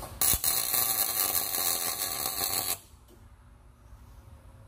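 Arc welder laying a tack weld on a steel roll-cage tube: a dense crackling, sputtering arc for about two and a half seconds, starting a moment in and cutting off sharply.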